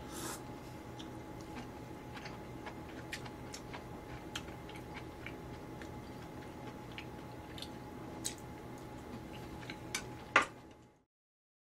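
A short slurp from a bowl of sukiyaki broth near the start, then faint chewing with scattered small clicks of chopsticks against the bowl and plate, and a sharper clack about ten seconds in. The sound cuts off abruptly just before the end.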